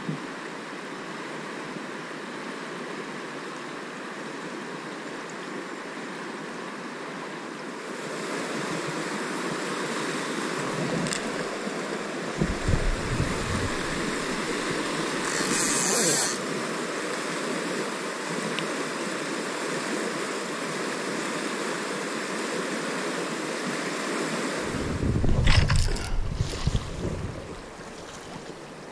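Fast-flowing river rushing past as a steady wash of water. Gusts of wind buffet the microphone about twelve seconds in and again near the end.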